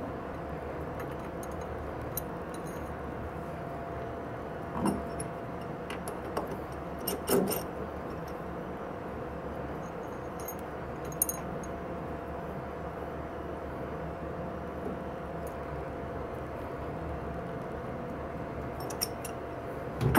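T-handle chuck key clicking against a metal three-jaw lathe chuck as the jaws are tightened and the chuck is turned by hand: a few scattered metallic clicks over a steady background hum.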